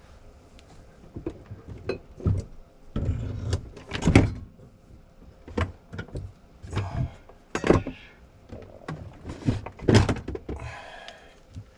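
Irregular knocks, clicks and thunks of the small jigsaw's parts being handled and set down during reassembly, with a brief scrape about three seconds in.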